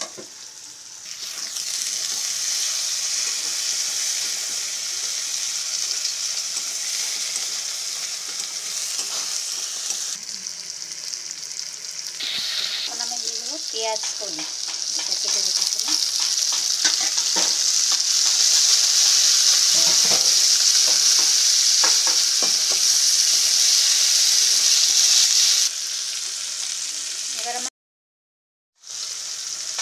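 Chopped onion, green chilli, garlic, ginger and tomato sizzling in hot oil in a steel kadai, stirred and scraped with a steel spatula. The sizzle swells about a second in, is loudest in the second half, then drops and cuts off briefly near the end.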